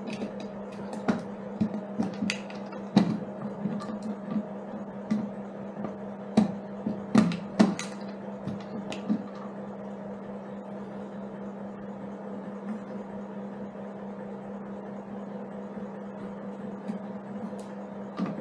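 A toolbox and its clamps being handled against a motorcycle's pannier rack frame: a run of sharp clicks and knocks over the first nine seconds or so, the loudest about seven seconds in, then a few faint ticks. A steady hum runs underneath.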